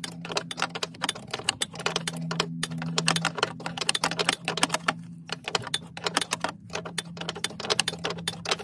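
Ratcheting wrench clicking rapidly as it is swung back and forth on a nut at the clutch master cylinder, in runs broken by short pauses, over a steady low hum.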